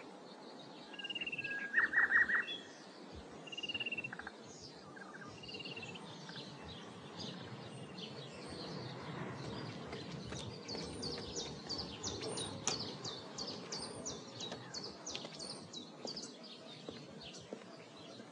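Several birds chirping and twittering. A short whistled note comes three times in the first six seconds, with a louder quick trill about two seconds in, then a run of rapid high chirps from about ten seconds in.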